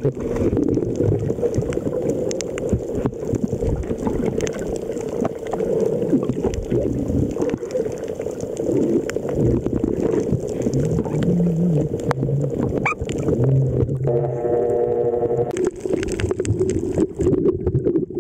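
Muffled underwater rushing and knocking of water against a waterproof Olympus TG-2 compact camera as it is swept through the water, with many small clicks. A low hum comes and goes near the middle and again a few seconds before the end.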